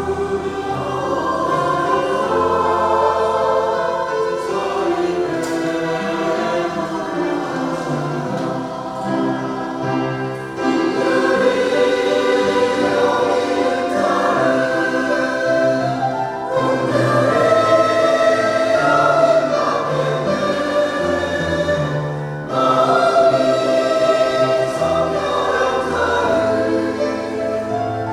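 Church choir singing a sacred anthem in parts, with sustained notes and a low bass line under the voices; it grows louder about ten seconds in.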